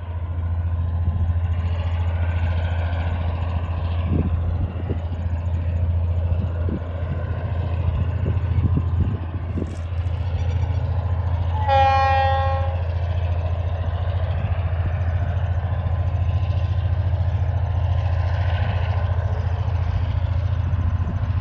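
TasRail DQ-class diesel locomotive running as it approaches, a steady low engine drone. About twelve seconds in it gives one horn blast of about a second, its warning for the level crossing.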